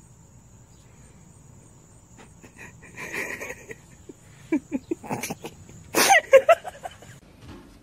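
A cat and a large dog sparring on a laminate floor: scattered tapping and scrabbling of paws, with a few short squeaky cries, then about six seconds in a loud, rough animal cry with falling pitch, the loudest sound.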